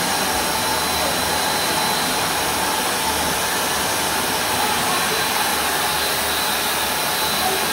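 Pet grooming stand dryer running steadily: a constant rush of blown air with a faint steady whine over it.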